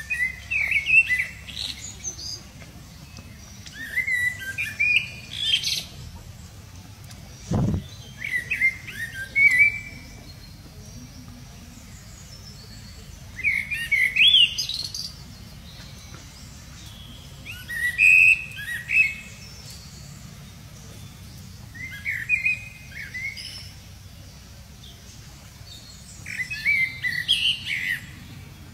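A bird singing short bursts of quick, rising chirps, one phrase about every four seconds. A single dull thump comes about eight seconds in.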